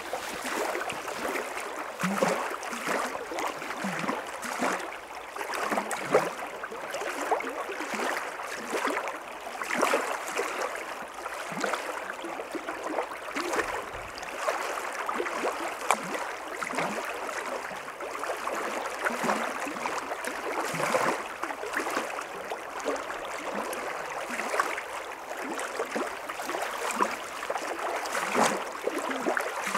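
Small stream flowing quickly over a shallow riffle: a steady rush of water broken by many small, irregular splashes.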